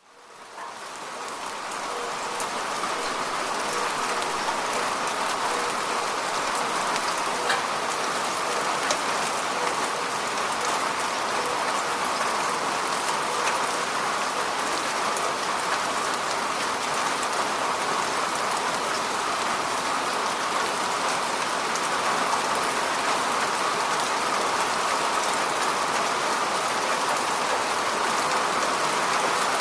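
Steady rain falling, a dense even hiss with scattered louder drops ticking. It fades in from silence over the first couple of seconds.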